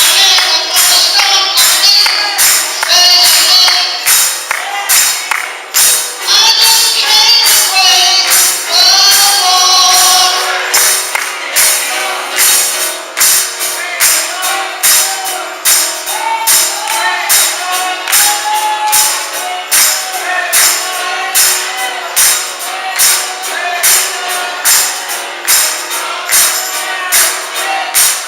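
Gospel worship singing with voices carrying a melody over a steady, regular tambourine beat.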